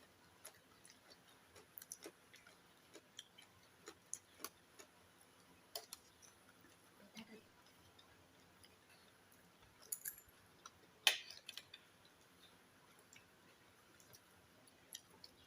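Faint sounds of people eating: soft chewing and scattered light clicks and taps, with two sharper clicks about ten and eleven seconds in.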